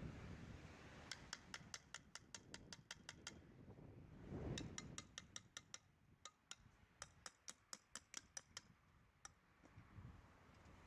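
Two runs of quick, light clicks, about seven a second, the first lasting about two seconds and the second about four, with a short low knock-like rumble between them.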